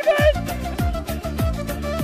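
Background music: a deep bass drum about every 0.6 seconds under a held melody.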